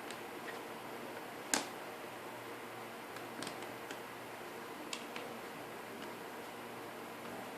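Plastic LEGO puzzle pieces clicking as they are handled, with one sharp click about a second and a half in and a few lighter clicks a couple of seconds later, over a steady hiss.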